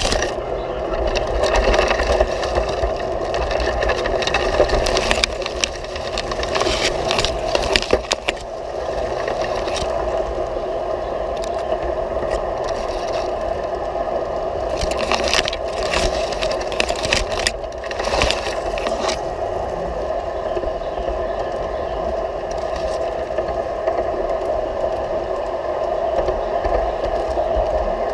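G scale model train running along its garden track, heard from a camera riding on the train: a steady hum of the motor and gearing with the wheels rumbling on the rails. Scattered clicks and rattles come through, several of them together a little past halfway.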